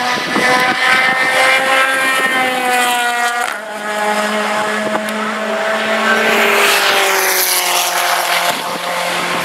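Radical SR3 race car's motorcycle-derived four-cylinder engine at high revs passing on the track: a high engine note that drops sharply about three and a half seconds in, then sinks lower again near the end.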